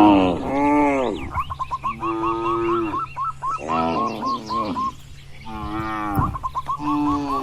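Several cows mooing, one long call after another with short pauses between, some calls overlapping.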